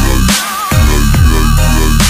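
Electronic music with a heavy, regular beat and a wavering synth line. The bass drops out briefly about half a second in, then the beat comes back in.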